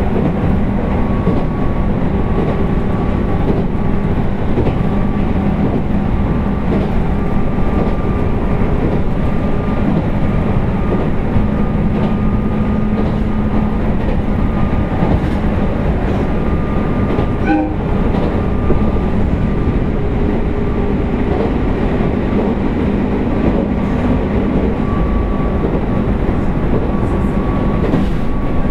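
Running sound of an Abukuma Express 8100-series AC electric train with thyristor phase control, heard inside the car: continuous wheel-on-rail noise with rail-joint clicks under a steady traction-motor hum and whine. A brief squeak comes just past halfway.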